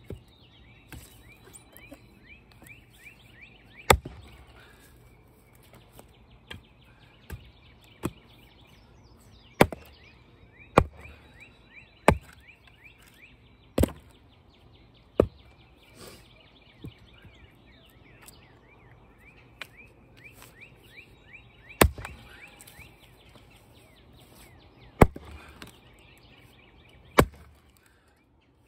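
Axe blows splitting knotty red maple firewood rounds: about nine heavy strikes at uneven intervals, with lighter knocks between them. Birds chirp steadily in the background.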